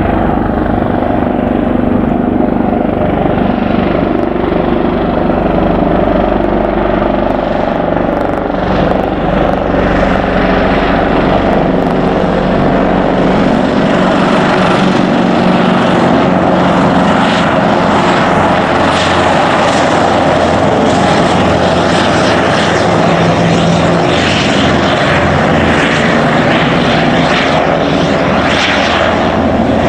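Eurocopter EC225 Super Puma helicopter passing low and close, its main rotor beating over the whine of its twin turboshaft engines. The sound grows brighter after about eight seconds as the helicopter turns side-on.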